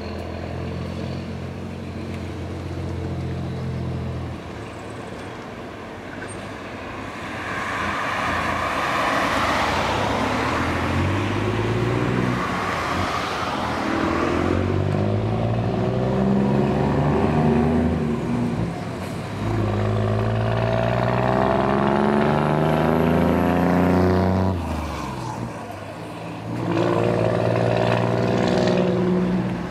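Scania R420 truck's six-cylinder diesel engine idling, then pulling away and accelerating through the gears. The engine pitch climbs on each pull and drops at three gear changes. It is loudest as the truck passes close by.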